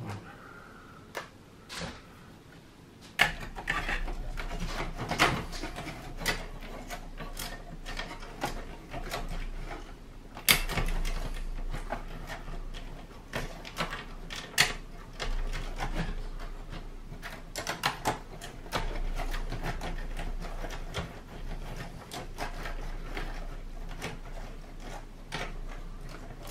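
Irregular clicks, taps and scrapes of hands and a screwdriver working inside the opened chassis of a Sony CMT-CP33MD micro hi-fi, undoing the screws that hold the cassette mechanism. The handling grows busier and louder about three seconds in, with a faint low hum underneath.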